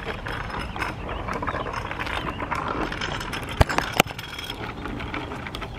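Small child's bicycle with training wheels rolling along a concrete sidewalk, rattling and clicking, with two sharp knocks about two-thirds of the way through.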